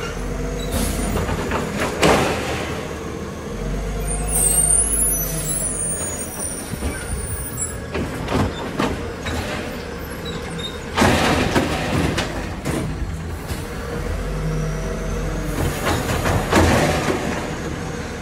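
Automated side-loader garbage truck at work: its diesel engine runs steadily while the hydraulic arm whines through its strokes, setting down one cart and lifting the next. Several loud clanks come from the carts and arm, and a hiss comes a few seconds in.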